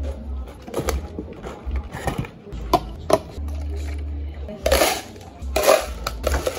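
Ice cubes poured into plastic cups, two loud rattling pours about five and six seconds in. Before them come lighter clinks and knocks of cups and bottles being handled. A low hum runs underneath.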